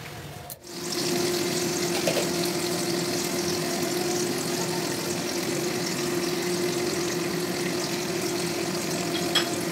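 Chicken and vegetable curry simmering in an open pan, a steady bubbling sizzle that starts about a second in, with a faint steady hum underneath.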